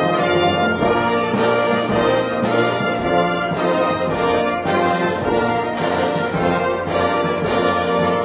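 Orchestral theme music led by brass, with a strong accent about once a second.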